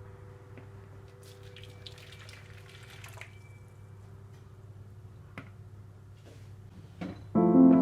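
Faint water dripping and trickling, with scattered light ticks over a steady low hum; background music comes in loudly near the end.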